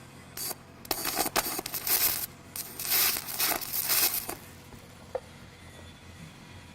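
Aluminium stick electrode arcing in several short bursts, the crackle of tack welds being struck on the preheated aluminium plate, over about four seconds.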